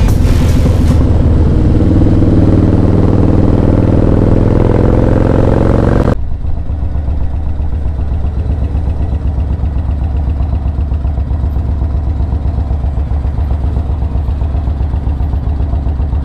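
Motorcycle engine under way, its pitch rising as it accelerates, with wind rush. About six seconds in, the sound cuts suddenly to a quieter, steady, low engine note, the bike running slowly or idling.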